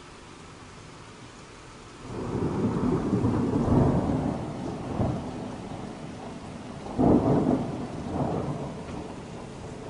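Steady rain hiss, then about two seconds in a low thunder rumble breaks in loudly. It rolls on with several swells, a sharper one a few seconds later, and slowly fades.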